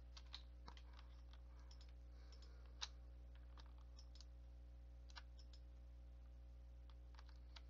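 Faint, scattered clicks of a computer mouse and keyboard over a steady low electrical hum, with one sharper click about three seconds in.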